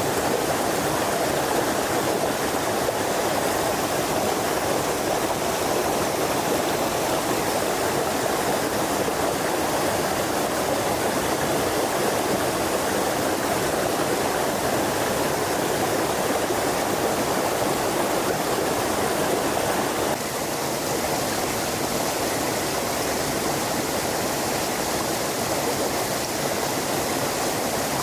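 Forest stream flowing, a steady continuous rush of water that drops a little in level and changes tone about twenty seconds in.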